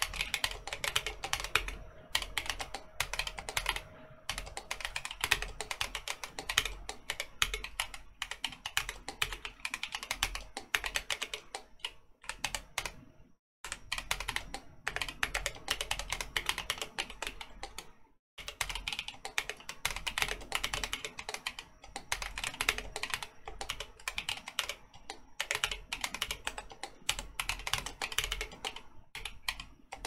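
Typing on a Keebio Fourier split mechanical keyboard with Gazzew Boba U4T tactile switches on 65 g springs and PBT MA-profile keycaps: a fast, steady stream of keystrokes, with two brief breaks near the middle.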